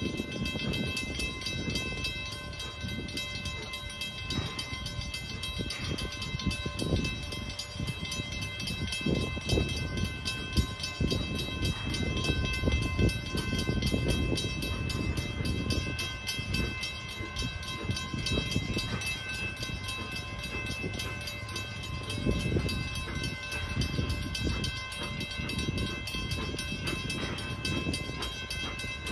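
Edison No. 1 4-4-0 steam train running along the track: an uneven low rumble that swells and falls irregularly, with a steady high whine throughout.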